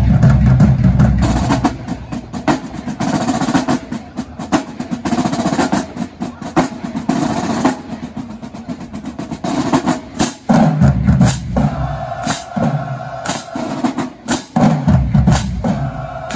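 Marching band drumline playing a cadence: snare drums with rolls and sharp, rapid strokes over bass drums. The heaviest low drumming comes in the first second or so.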